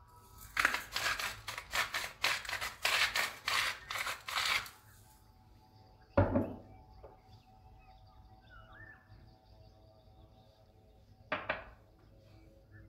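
Seasoning sprinkled over a raw chicken breast in a frying pan: a quick rhythmic run of about a dozen gritty strokes lasting some four seconds. One sharp knock follows about six seconds in, and a shorter one near the end, over faint background music.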